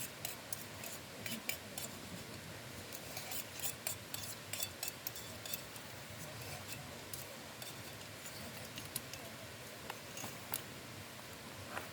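Light clicks and clinks of eating utensils against tableware, coming in quick irregular clusters, busiest in the first half and again near the end.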